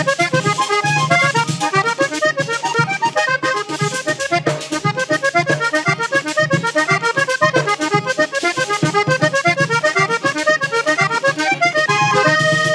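Vallenato paseo played on a red Hohner Corona III three-row button accordion: quick melodic runs over pumping bass notes, with no singing. A hand drum and a scraper keep a steady beat underneath.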